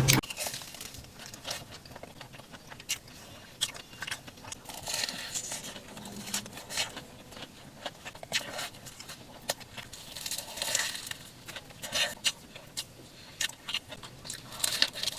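Close-up eating sounds: bites into a crispy battered corn dog, with a run of crunches, small crackles and mouth clicks while chewing.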